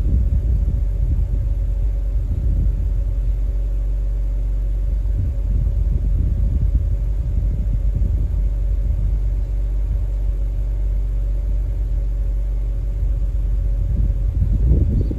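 BMW N52 straight-six idling steadily at the twin tailpipes during an anti-carbon decarbonising treatment.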